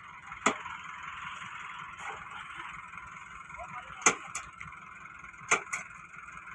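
Sharp knocks at the hitch between a tractor and a loaded sugarcane trolley as the coupling is worked on and tightened. There is one knock near the start, then several in quick pairs a second or so apart later on, over a steady hiss.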